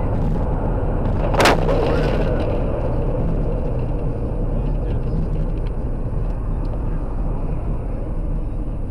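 A single sharp impact about one and a half seconds in, with a brief ringing after it, as a load of snow hits the windshield of a moving car and leaves it covered. Steady road and engine noise of the car continues throughout.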